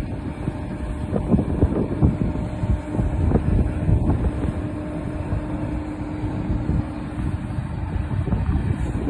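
Wind buffeting the microphone in uneven low gusts, over a steady engine hum.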